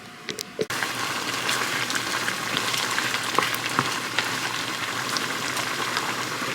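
A few light clicks, then under a second in a steady crackling sizzle starts suddenly: chicken frying in oil with lemongrass paste in a pan.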